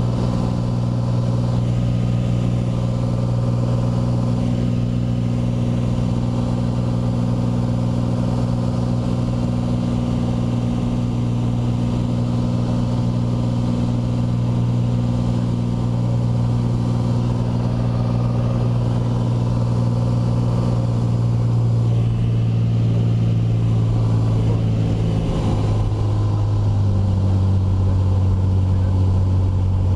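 Steady drone of a single-engine light aircraft's engine and propeller, heard from inside the cockpit in flight. The engine note steps down slightly about 26 seconds in.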